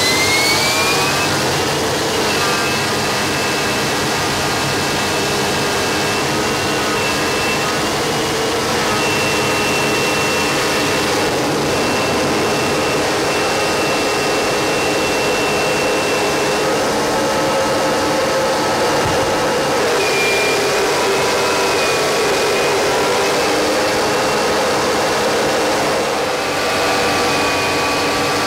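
Rolls-Royce Pegasus turbofan of a two-seat Royal Navy Harrier jump-jet running hard. A steady high whine over a dense rush rises in pitch over the first couple of seconds, then holds, shifting pitch a couple of times later on.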